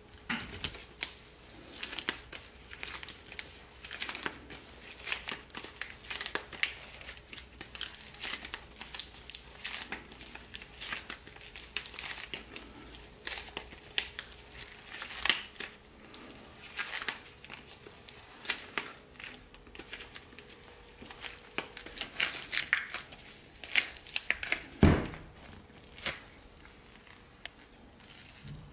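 Gloved hands pulling, folding and kneading a mass of hot cooked sugar, with constant irregular crinkling and crackling as the sticky sugar stretches and the gloves rub it. This is sugar pulling, which turns the clear amber sugar opaque white. A single thump about 25 seconds in is the loudest sound.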